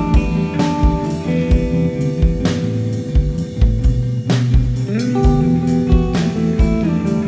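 Band music with guitar, bass, keyboard and synth over a drum kit: a steady kick-drum beat about twice a second under held chords, with cymbal crashes a few times.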